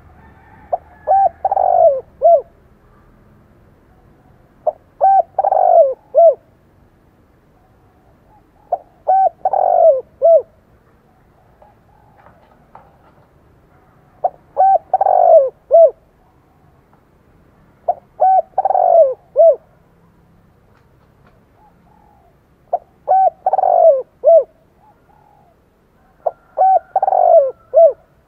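Caged male spotted dove cooing: seven phrases about every three and a half seconds, each a couple of short coos leading into a longer, louder coo and a short closing note. It is the bird's territorial call, kept as a decoy to provoke rival males.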